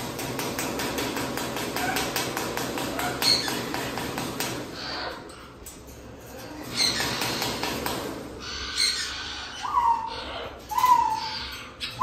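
White cockatoo vocalizing in its cage: a long stretch of harsh, noisy sound, then two short calls near the end, each falling slightly in pitch.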